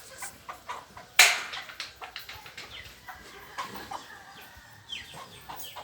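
Chickens clucking and calling in short bursts, with one loud sudden burst about a second in and a few short falling calls near the end.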